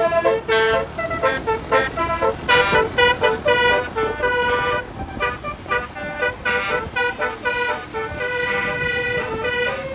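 Indonesian bus 'telolet' 36-trumpet air horn playing a fast melody of short chord-like notes, with a few longer held notes in the second half.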